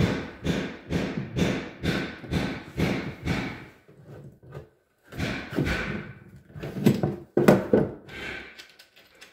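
A Molly hollow-wall anchor being set into drywall with a Molly installation tool: a rhythmic run of solid knocks, about two a second, that pauses around four seconds in, resumes in a few heavier clusters, then dies away.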